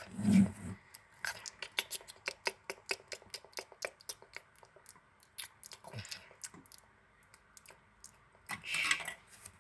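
Plastic LEGO pieces and a minifigure being handled and tapped on the set, a quick run of small sharp clicks for several seconds, with a short low thud at the start and a brief rustle near the end.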